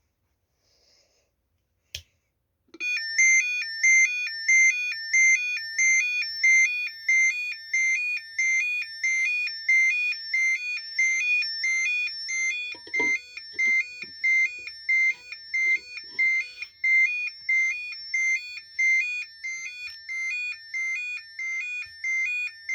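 Electronic alarm tone from a warning light: a click about two seconds in, then a rapid alternating two-pitch beeping melody that starts and repeats steadily, one of the light's selectable sound channels.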